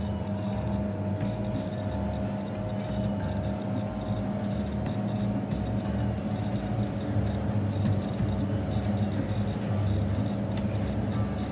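Nordex N27 wind turbine running, its nacelle giving a steady mechanical hum with a held tone over a low, uneven throb.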